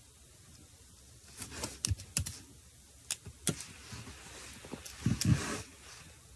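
Handling sounds close to a phone's microphone: a scattering of sharp taps and clicks, then a cluster of clicks with a knock and rustle about five seconds in.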